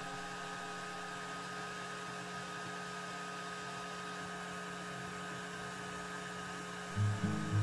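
Atezr P20 Plus laser engraver running while it engraves: a steady hum with a thin, steady high tone.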